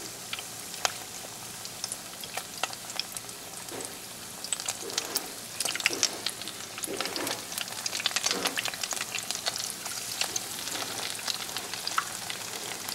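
Beer-battered haddock fillets deep-frying in hot peanut oil in a 4-cup FryDaddy deep fryer: a steady sizzle full of quick crackles and pops that grow busier as it goes.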